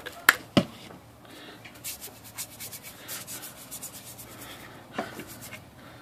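A bristle brush scrubbing cleaner into the wet, black wrinkle-finish paint of a Royal KMM typewriter lid, a run of short scratchy strokes, with two sharp knocks in the first second.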